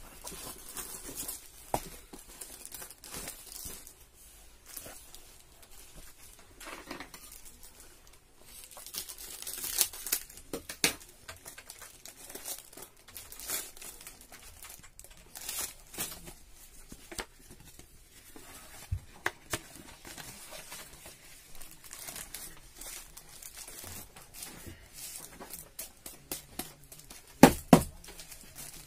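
Clear plastic wrap around bundles of paper envelopes crinkling and tearing as it is peeled off, with the envelopes rustling as they are handled. A few louder sharp knocks come near the end.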